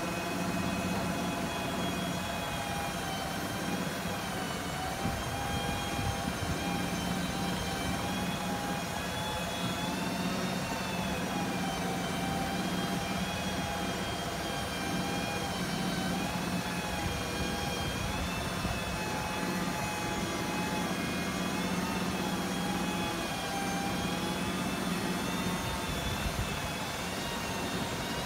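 Mitsubishi Canter's 4M50 turbo-diesel engine running to drive the Aichi SH09A aerial platform's hydraulics as the boom lifts the bucket. A steady whine wavers slightly in pitch over the engine, with a low hum that drops out and returns a few times.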